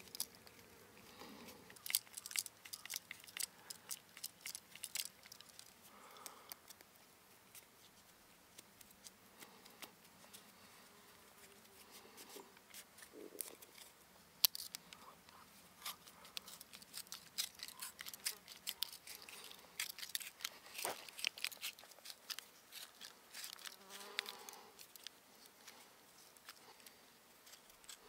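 A pointed tool being twisted into a piece of wood to bore a wide hole: faint scraping and small cracks of wood fibres in quick clicking bursts, with short pauses between.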